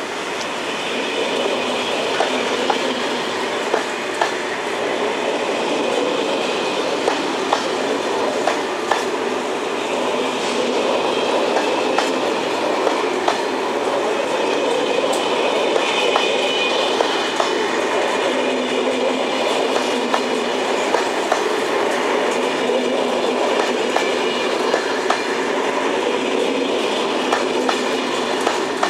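SNCF Corail passenger coaches rolling past at a steady pace, with a continuous rumble and sharp wheel clicks over rail joints every second or two.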